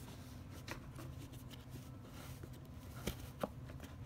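Light handling noises of a hand moving a rigid cardboard gift box: soft scattered taps and brushing, with two sharper clicks a little after three seconds in, over a steady low hum.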